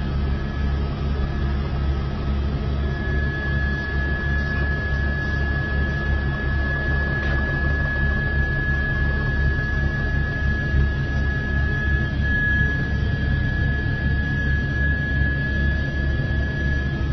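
Helicopter cabin noise: a steady drone of engine and rotor, with a constant high-pitched tone running through it.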